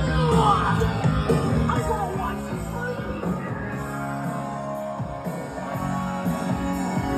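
A rock song with a singer playing over a car's newly installed stereo: a Custom Autosound OEM-style radio driving new Pioneer speakers.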